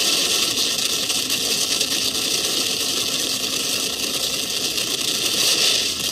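Alcohol-fueled dragster engine running, a loud steady rushing noise with little low rumble.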